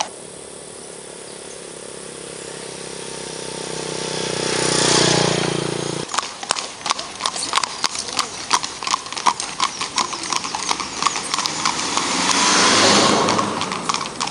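Horses' hooves clip-clopping on an asphalt road in a quick, even rhythm of several clicks a second, starting about six seconds in. Before the hooves, a steady hum swells to a peak and cuts off abruptly. A second swell of noise rises under the hooves near the end.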